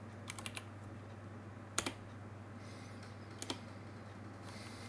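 Computer keyboard being typed in a few short runs of key clicks, over a steady low hum.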